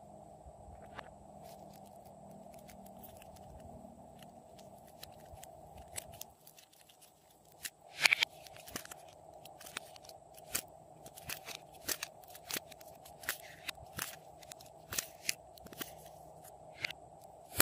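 Hands squeezing, pulling and tearing soft pink modelling clay and handling its plastic trays, giving light crunchy crackles and clicks. These are sparse at first and come thick and fast from about halfway on, over a faint steady hum.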